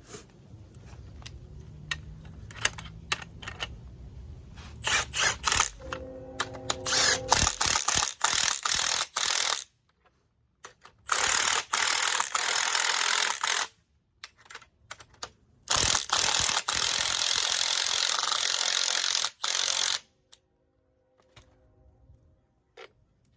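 Metal parts clicking and knocking, then a power tool running on the strut spring compressor in several bursts of a few seconds each, starting and stopping abruptly.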